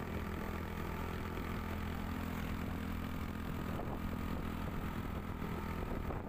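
Motorbike engine running at a steady pace while riding, with road and wind noise.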